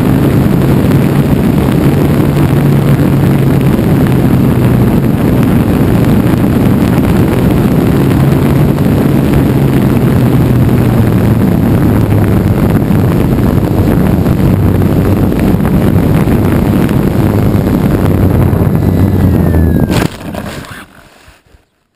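Light aircraft's engine running steadily with heavy wind noise on the microphone, its low engine note shifting a few times. About twenty seconds in the sound cuts off suddenly with a click and fades away.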